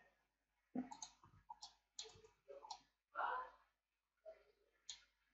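Faint clicks of a computer mouse and keyboard during 3D editing: about a dozen short, irregular taps, with one slightly longer soft noise a little past three seconds in.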